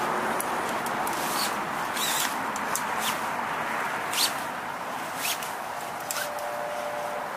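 Steady traffic noise from a busy road, with scattered sharp clicks and rustles of a tent and its poles being handled close by.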